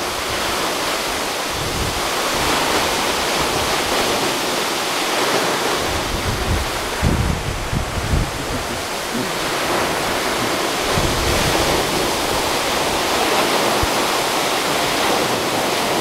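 Tall waterfall pouring into its plunge pool: a loud, steady rush of falling water. Wind gusts buffet the microphone now and then underneath.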